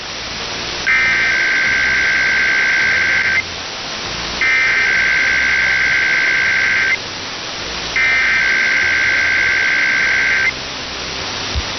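Emergency Alert System SAME header: three loud bursts of warbling two-tone digital data, each about two and a half seconds long, about a second apart, over steady radio static hiss. They encode the alert that follows, here a required weekly test.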